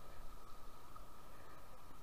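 Steady hiss of a shallow river running over rocks, with a few uneven low rumbles in the first second.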